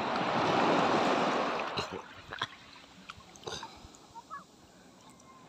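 Seawater splashing and sloshing close to the phone's microphone for about two seconds, then several short knocks and clicks as the phone is handled.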